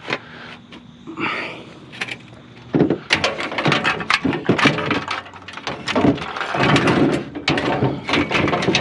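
Metal bed frames being set onto a trailer: a few separate knocks, then from about three seconds in a dense, irregular run of clanks, rattles and scrapes.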